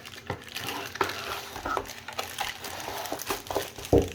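Packaging being handled by hand while a charger's plug and adapter are unpacked: rustling with small clicks and taps, and a louder knock near the end.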